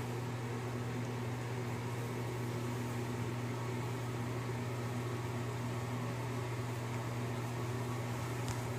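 A steady low mechanical hum that does not change, with a faint even hiss above it.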